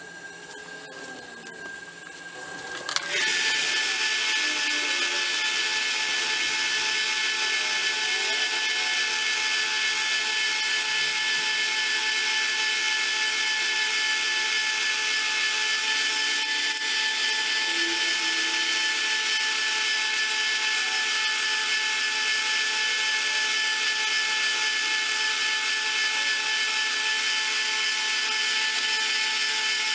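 An electric power tool motor switches on about three seconds in and runs steadily at constant speed. It is working on a steel screwdriver during restoration, which includes sharpening and polishing the blade.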